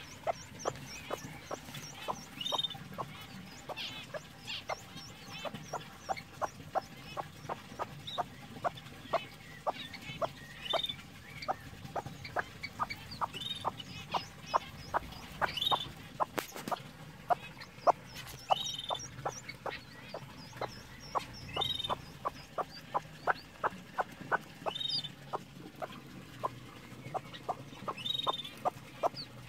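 Broody hen clucking steadily, about two soft clucks a second: the call a mother hen keeps up to her chicks, here golden pheasant chicks she is fostering. The chicks' high peeps come every few seconds over the clucking.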